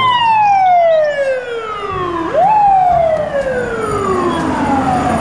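Fire truck's mechanical siren winding down in a long falling tone. About two seconds in it is quickly wound up again, then slides slowly back down.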